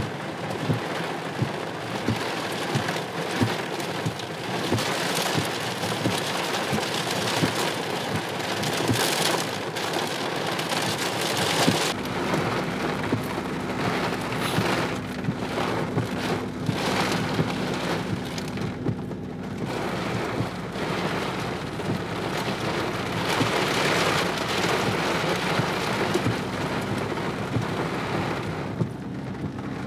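Heavy rain pelting a car's roof and windscreen in a thunderstorm, heard from inside the car as a dense patter of drops. About twelve seconds in, a low steady hum joins it.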